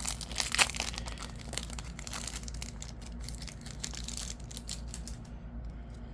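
Crinkling and rustling of a trading-card packet wrapper and cards being handled, an irregular run of crackles that thins out near the end.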